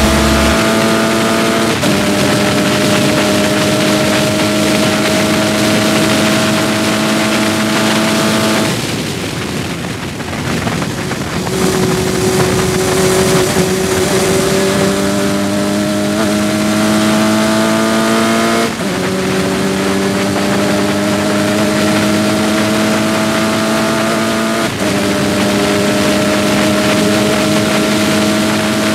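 Onboard sound of a Sports 2000 race car's Ford 2.0-litre four-cylinder engine running near the top of its revs. The note climbs through the gears with several upshifts. About a third of the way in it breaks off briefly as the driver lifts for a corner, then pulls hard again. Wind rush sounds over the engine.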